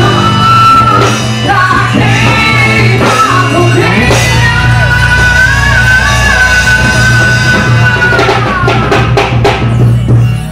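Loud music with singing and drums. A long held note in the middle slides down, and a run of drum hits follows near the end.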